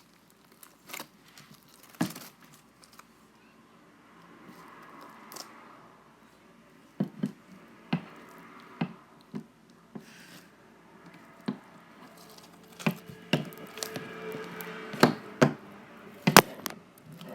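Fluffy slime being squished and pulled by hand, giving irregular sharp pops and clicks.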